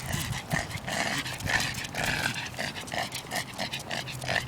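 A pug panting hard and fast, in short breaths at about four a second: the dog is hot and thirsty.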